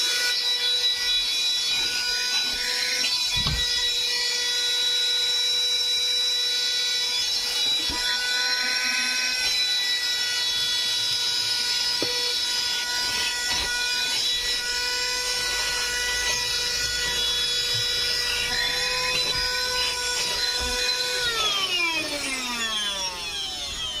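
Bergmann Tornado 12V handheld car vacuum cleaner, with a copper-core motor, running with a steady high whine as it is worked over the seat and floor mat. About 21 seconds in it is switched off and the whine falls in pitch as the motor spins down.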